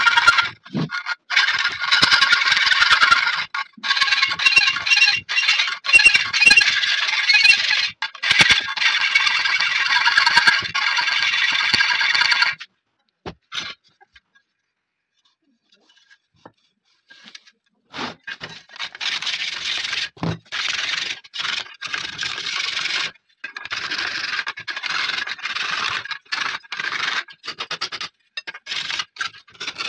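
Hand file rasping back and forth across an AKM magazine clamped in a vise, in repeated strokes. The filing stops for a few seconds around the middle, with only a few light clicks, then starts again.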